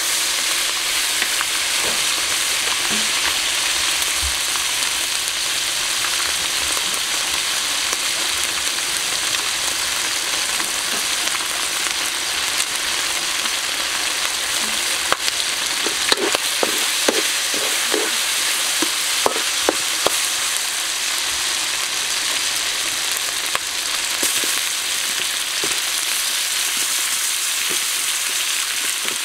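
Pieces of pork sizzling in hot fat in a metal wok as they are stir-fried with a metal spatula. About halfway through, a quick run of sharp clicks of the spatula against the wok.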